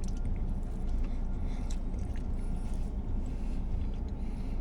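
A person chewing a bite of a bacon cheeseburger, with a few faint soft crackles, over a steady low rumble.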